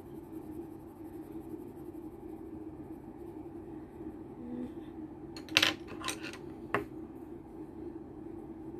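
A steady low hum with three sharp clinks of small hard objects a little past halfway, the first the loudest.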